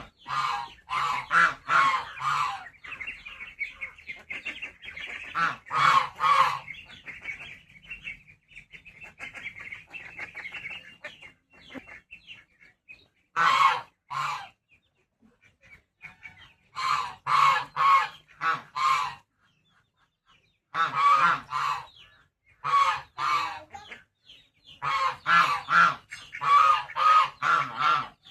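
Domestic geese honking in repeated loud bouts of several calls each, with short pauses between bouts. A steady high-pitched sound runs beneath the first half.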